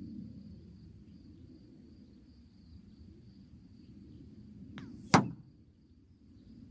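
A Hatsan air gun firing a single sharp shot about five seconds in, just after a faint click.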